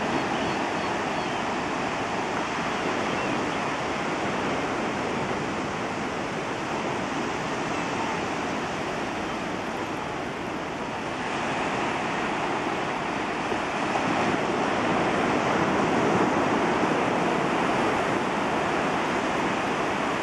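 Low surf washing in on the shore: a steady rush of breaking water that swells louder about halfway through and again a few seconds later.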